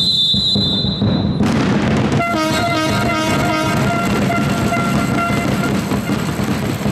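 A referee's whistle blown in one long blast, then a horn sounding a steady, multi-note tone for about three and a half seconds, over the hum of a crowd in a sports hall.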